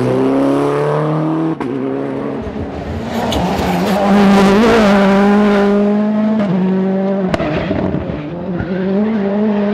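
Rally cars' turbocharged four-cylinder engines at high revs in quick edited cuts, including a Ford Fiesta RS WRC's 1.6-litre turbo engine passing close. The pitch rises sharply at the start as one car accelerates, then holds high with brief dips at gear changes.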